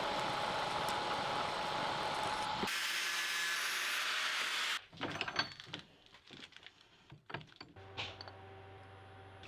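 A machine tool cutting steel: a steady cutting noise with a faint whine, cut off abruptly after a few seconds. A brighter stretch of cutting noise follows, then scattered clicks and knocks of metal parts being handled, and near the end a motor's steady hum.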